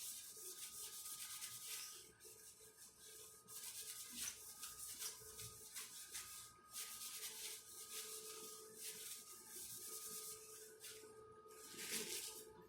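Faint rubbing strokes, each lasting a second or two with brief pauses between, over a faint steady machine hum of two held tones.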